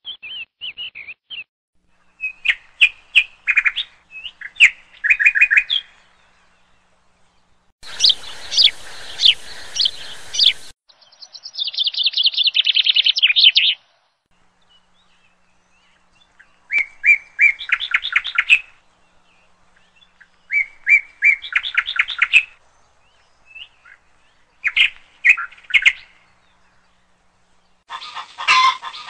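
Indian giant squirrel (Ratufa indica) calling: short bursts of rapid, sharp repeated notes, one to two seconds each, coming again every few seconds, with one harsher, noisier burst about eight seconds in.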